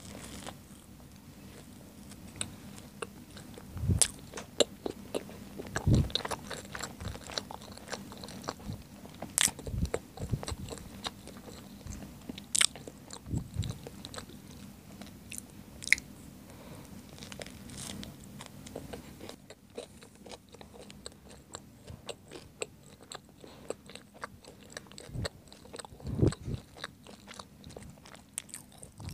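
Close-miked chewing of a bite of hot dog sandwich, a sausage in a soft bun with mustard and ketchup, with many small wet mouth clicks and smacks. A few louder low thuds come through along the way.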